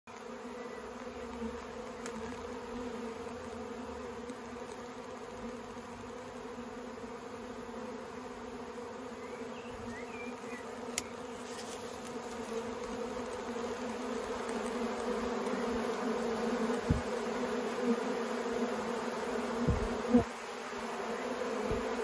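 A swarm of honeybees buzzing: a steady, even hum that grows louder as the microphone moves in close to the bees. One sharp click about eleven seconds in and a few short low thumps near the end.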